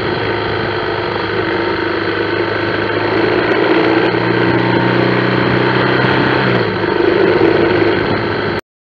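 Motorcycle engine running under way in traffic, with a steady, loud, slightly distorted mix of engine and road noise. A low steady engine tone drops away about two-thirds of the way in, and the sound cuts off suddenly near the end.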